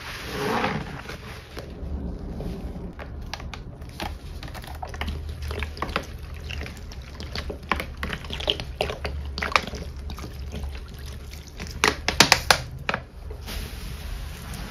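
A sponge squeezed in thick soap foam with a wet squish, then liquid pine cleaner poured onto the suds with many small crackles and squelches. About twelve seconds in, a quick run of sharp taps as cans of powder cleanser are shaken over the foam.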